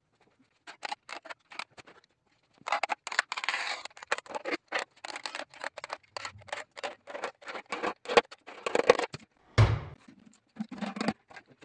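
Hand ratchet clicking in quick runs as bolts are backed out of an engine's oil pan, with a single heavier knock near the end.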